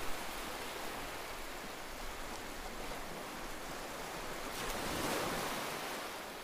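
Steady rushing noise, like surf or heavy hiss, with no tones or voices; it swells briefly about five seconds in.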